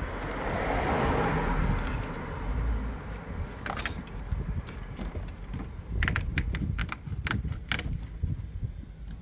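Sharp plastic clicks and rattles from handling the car's tail-light wiring and connectors: a short cluster about four seconds in, then a quick run of clicks around six to eight seconds, over a low steady rumble.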